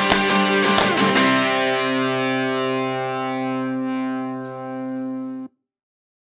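Background guitar music: strummed with sharp hits for about the first second, then a final chord held and ringing, which cuts off suddenly about five and a half seconds in.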